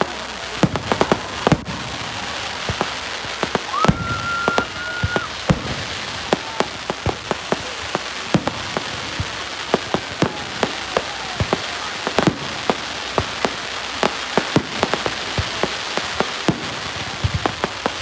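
Fireworks going off: many sharp bangs and pops, irregular and continuous, over a steady crackling hiss. About four seconds in, a whistle rises and holds a steady pitch for about a second and a half.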